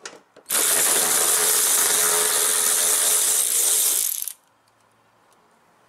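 Cordless electric ratchet running in one burst of about three and a half seconds, from about half a second in, backing out a 10 mm fender liner screw, then stopping.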